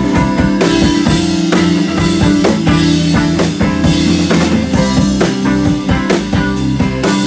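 Live rock band playing: two electric guitars over a drum kit with steady drum hits.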